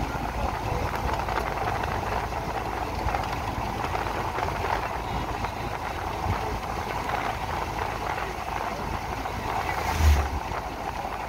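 Steady running noise of a car driving along a road, heard from inside the cabin: engine, tyres and wind, with one short low thump about ten seconds in.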